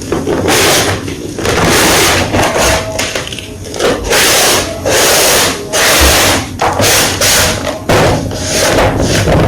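Blocks of gym chalk being crushed, close up: a run of about a dozen dry crunches, each under a second, with short gaps between them.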